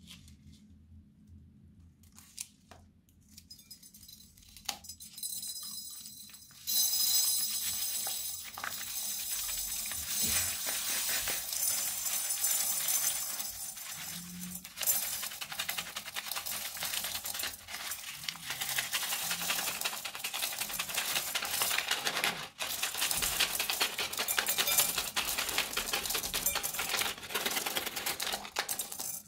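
Small plastic craft beads pouring out of a snipped plastic piping bag into a plastic bowl: a dense, continuous rattle of tiny beads hitting the bowl and each other. It starts about seven seconds in after a few light handling clicks, with brief breaks about halfway and again a little later.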